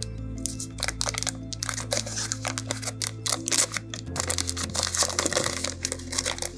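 Butter's paper wrapper crinkling and rustling as it is peeled off the block, a quick irregular run of small crackles.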